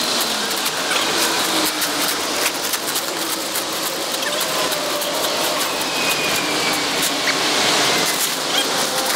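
Plastic shipping wrap crinkling and rustling as it is pulled off a kayak, a dense steady crackle of many small clicks.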